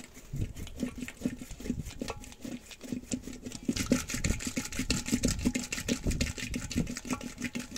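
Wooden hand churn spun back and forth in a clay pot of yogurt, its star-shaped dasher sloshing and beating the yogurt in a fast, even rhythm of soft thumps. It turns splashier about halfway through as the yogurt froths up.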